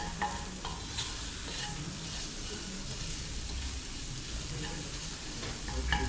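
Chicken pieces frying with spices in a hot pan, sizzling steadily, while a utensil stirs and scrapes, making light clicks now and then.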